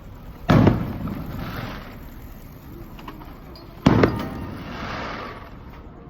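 Two fireworks shells bursting overhead, about three and a half seconds apart, each a sudden boom that rolls away over about a second.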